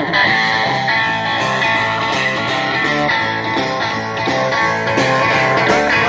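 Live rock band playing amplified: an electric guitar riff over bass guitar and drums, at a steady rhythm.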